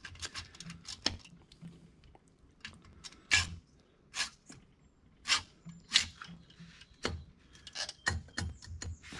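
Irregular metal clinks and taps from a finned cylinder barrel being worked over the piston and onto the case studs of an air-cooled VW Type 1 engine. A few sharper knocks stand out around the middle.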